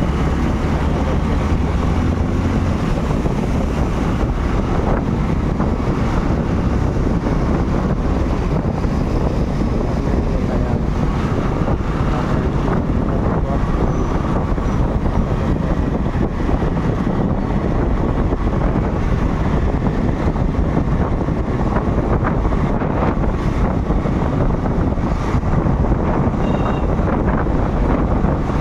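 Steady wind rushing over the microphone of a camera on a moving motorcycle, over the low rumble of road and traffic noise.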